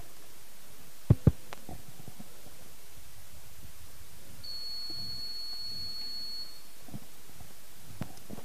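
Two sharp thumps in quick succession about a second in, typical of a handheld microphone being knocked as it is passed over, over the low hum and murmur of a large hall. Midway a thin, high, steady tone sounds for about two seconds.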